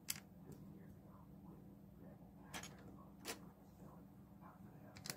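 Plastic Lego pieces being handled and pressed together, giving a few sharp clicks: one just after the start, two a little past halfway and the loudest at the very end. A low steady hum runs underneath.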